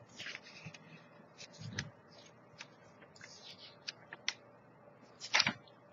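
Pages of a glossy magazine being handled and turned: light paper rustles and small clicks, with a sharper rustle about five and a half seconds in.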